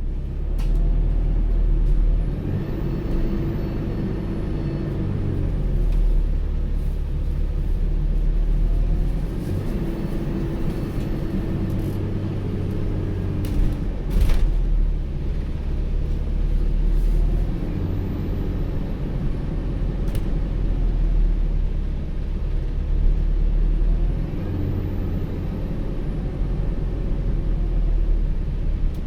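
ADL Enviro400H City hybrid double-decker bus running, its drive giving a high whine that rises and falls every several seconds over a steady low rumble. A sharp knock sounds about halfway through.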